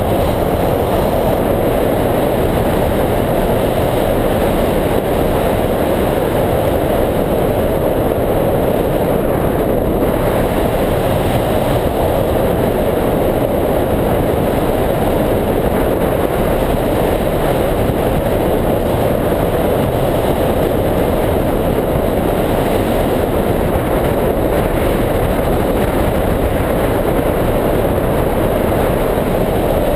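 Steady, loud wind noise from airflow rushing over a microphone mounted on a hang glider's wing in flight.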